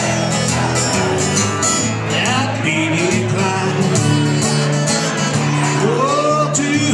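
Live guitar music played steadily, with a voice singing in places.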